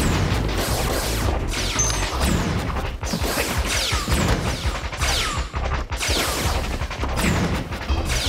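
Cartoon laser-gun sound effects, a rapid run of quick falling zaps, over action background music.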